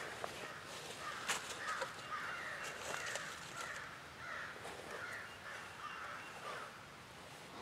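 A group of crows cawing over and over, many calls in quick succession, going crazy. A few sharp clicks cut in, the loudest about a second in.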